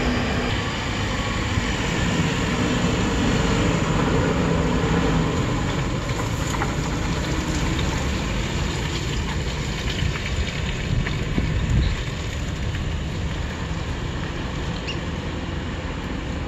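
Diesel engine of a heavily loaded multi-axle lorry running steadily as it passes close by, with tyre and road noise.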